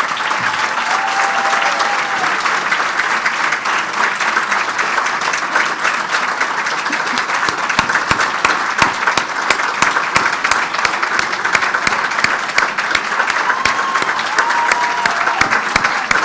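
Large audience applauding, a dense, sustained clatter of many hands clapping.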